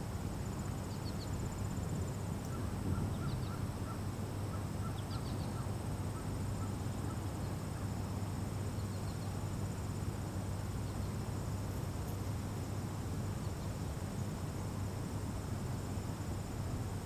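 Outdoor ambience: insects trilling steadily and high over a low, even rumble. A run of short chirping calls comes in the first few seconds, with a few other brief chirps scattered through.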